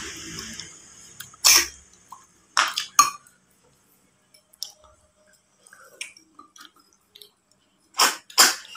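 Eating sounds: several short, sharp slurps from people eating snails in broth, one about a second and a half in, two around three seconds, and two close together near the end, with faint clicks of spoons and shells on the dishes between.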